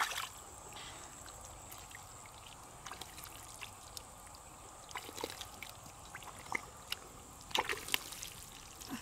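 Shallow muddy water trickling and sloshing as hands work in it, with scattered small splashes and a few louder ones near the end.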